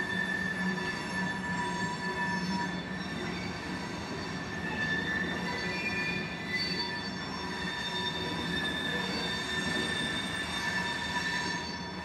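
Freight cars, covered hoppers and tank cars, rolling past at slow speed, their steel wheels squealing against the rails in several steady high-pitched tones that fade in and out over the rumble of the train.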